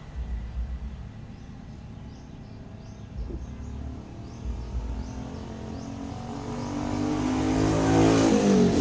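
An engine passing by: it grows steadily louder over the last few seconds, then drops in pitch as it goes past near the end.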